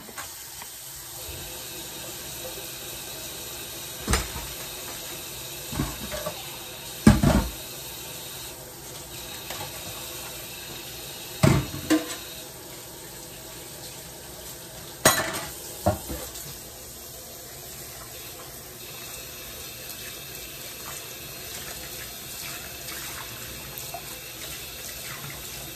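Kitchen faucet running steadily into a stainless steel sink while dishes are rinsed by hand. Several sharp knocks and clinks of a ceramic mug and a glass mixing bowl against the sink stand out above the water.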